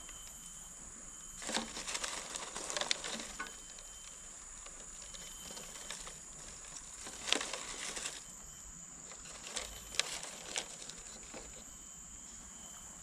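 Hands rummaging in a plastic jar of live crickets and handling fishing tackle: rustling, clicking and light plastic knocks in three short bouts. A steady high-pitched insect buzz runs underneath.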